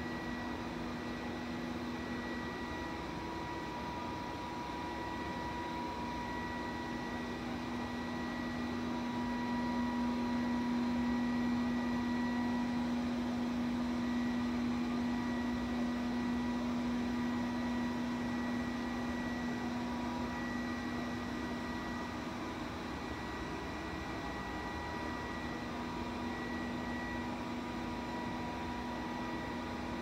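Robot vacuum cleaner running as it drives across a tiled floor: a steady motor hum with a high whine over it, swelling a little about ten seconds in.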